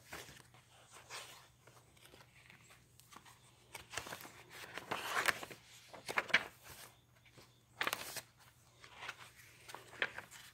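Paper pages of a handmade altered Little Golden Book journal being turned and handled: irregular paper rustles and flicks, with a longer rustle about halfway through and a sharp flick a little later.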